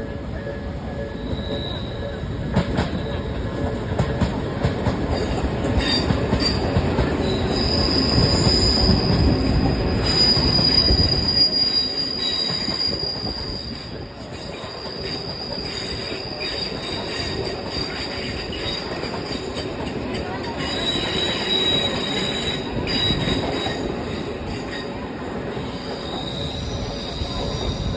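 Odakyu electric train passing with a loud rumble of the cars and clicking of wheels over rail joints. A high wheel squeal rises over it, loudest about eight to eleven seconds in. The rumble then drops, and the squeal and clicks come back more faintly in the second half.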